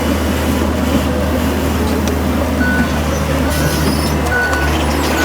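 Truck engine idling with a steady low hum, with a few short high beeps over it in the second half.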